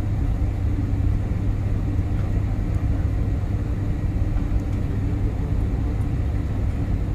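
Steady low rumble inside an airliner cabin on the ground after landing: engine and rolling noise while the plane taxis.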